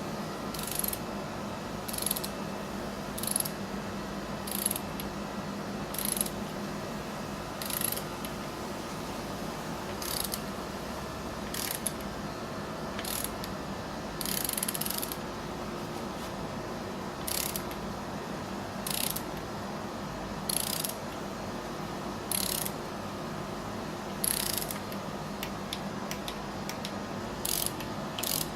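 Torque wrench with a 10 mm socket ratcheting as the water pump bolts on a Honda B18 engine block are torqued down to 104 inch-pounds: short bursts of ratchet clicking every second or two.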